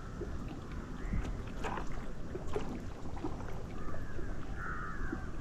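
Outdoor riverside ambience: a steady low rumble of wind on the microphone, with faint bird calls chirping over it, the clearest about four and a half seconds in.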